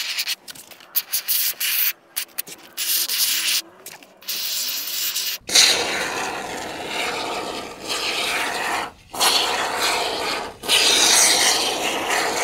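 No Nonsense expanding foam hissing out of the can through an applicator gun's long nozzle as it is fed into a gap. The hiss comes in short bursts for the first few seconds, then runs more steadily with a few brief breaks.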